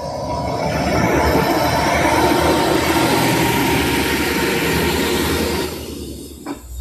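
A large truck passing close by: its engine and tyre noise swell over the first second, hold loud for several seconds, then fade away near the end.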